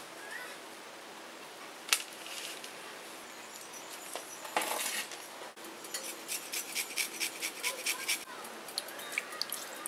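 Lemon rind being grated on a handheld metal grater: a run of quick rasping strokes, about five a second, for roughly two seconds in the second half. A single sharp click comes about two seconds in.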